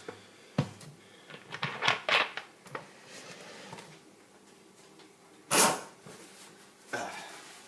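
Knocks and clicks of soda bottles and small items being handled on a table, with one louder rustling scrape about five and a half seconds in.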